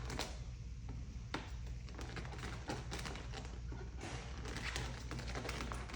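Excess paint protection film being peeled off the mirror after trimming, giving a run of small irregular crackles and ticks that grow denser in the second half, over a steady low hum.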